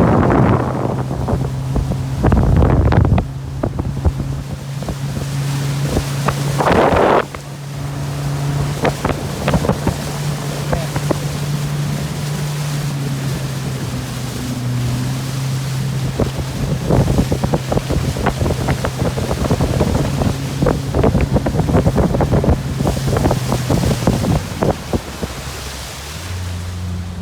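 Motorboat engine running steadily under way, with wind buffeting the microphone and water rushing and slapping along the hull; loud gusts come near the start and about seven seconds in, and the engine note shifts near the end.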